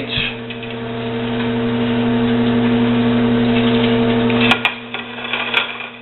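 Countertop microwave oven running with a steady electrical hum while bacon cooks inside. The hum cuts off abruptly about four and a half seconds in, with a couple of sharp clicks, and another click comes near the end.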